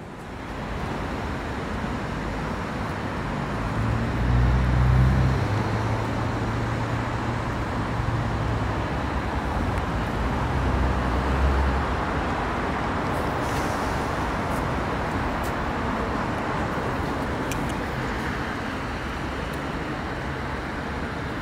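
Road traffic on a city street: cars driving past, with a deep engine rumble that swells about four to six seconds in and again around eleven seconds as vehicles pass close.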